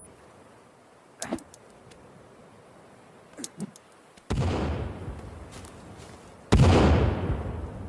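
Bomb explosion sound effect: two heavy blasts about four and six and a half seconds in, each sudden with a long fading tail, the second the louder. Before them come two short, quieter pops.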